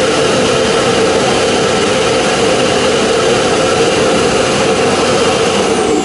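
ROIDMI robot vacuum's self-emptying dock running its suction motor, a loud steady rushing noise with a constant mid-pitched hum, as it sucks the dust out of the docked robot's bin.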